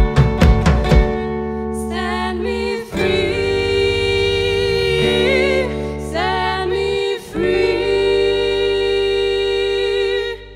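The end of a live folk-rock song. A few drum hits come in the first second, then women's voices hold the final sung notes with vibrato over a sustained guitar and bass chord, with short breaks between phrases, and everything fades out at the end.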